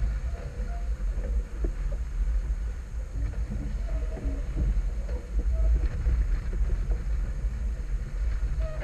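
Steady rumble of wind buffeting the microphone of a small sailboat under sail in a fresh breeze, with the rush of water along the hull underneath.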